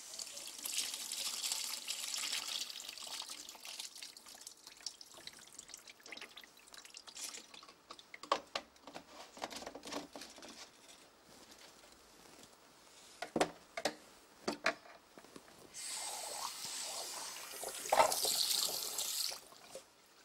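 Water running from a washbasin tap into the basin, once near the start and again near the end, each for a few seconds. In between come sharp knocks and clicks from hands and tools working at the basin.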